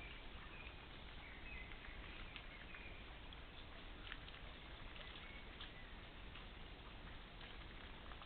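Steady hiss from a wildlife trail camera's microphone, with faint, short high chirps scattered through the first few seconds and a few faint ticks.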